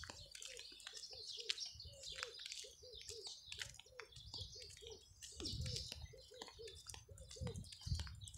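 Birds chirping and calling, many short high chirps over a low call repeated rapidly, about three or four notes a second, with a low rumble at times.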